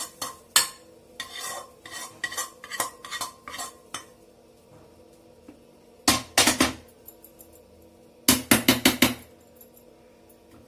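Slotted metal spatula scraping and clinking against a metal kadai as thick cooked chutney is scraped out into a steel bowl. There is a loud clatter about halfway through and a quick run of about six metal knocks near the end.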